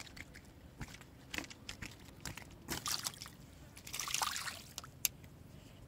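Light splashing and dripping water with scattered small clicks as a small, just-landed tilapia is handled on the fishing line, with a brief louder splash about four seconds in.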